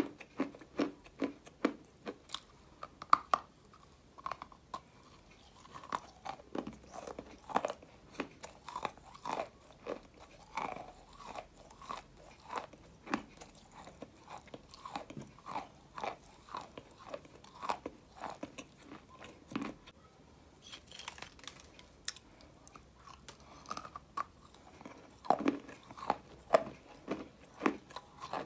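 Someone chewing and biting a block of dry white clay: repeated crisp crunches, about two a second, as the clay breaks between the teeth. There is a short lull about two-thirds of the way through.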